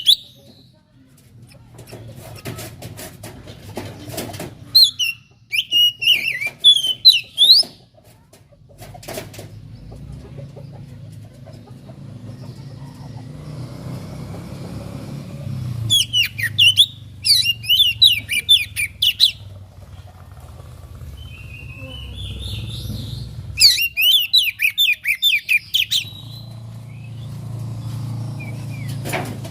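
Oriental magpie-robin (kacer) singing in three bursts of quick, high chirping and whistled notes, each a few seconds long, over a steady low hum.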